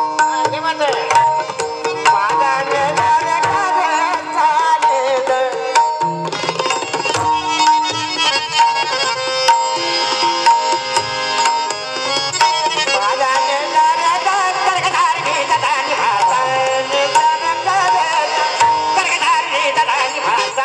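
Bhajan music: an Indian hand drum plays a quick run of strokes under steady held notes and a wavering melody line.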